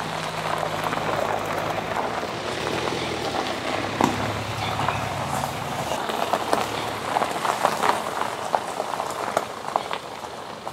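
Mini Countryman rolling slowly over gravel and pulling up: tyres crunching and popping on the loose stones over a low engine hum, which drops away about two-thirds of the way through while the crunching goes on a little longer.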